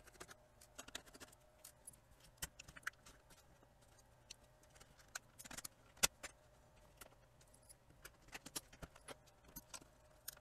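Faint, scattered clicks and taps of a small screwdriver and fingers working on a portable DVD player's plastic case and circuit board as the main board's screws come out and the board is lifted. One sharper tap comes about six seconds in.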